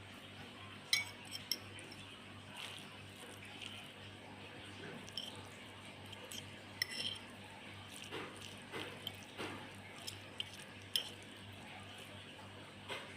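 Eating utensils clinking against a dish now and then, a handful of short sharp clinks spread through, over a faint steady low hum.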